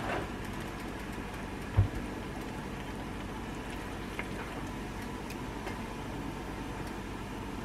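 Cream sauce simmering on low in a skillet, a soft steady bubbling hiss, with a single low thump about two seconds in.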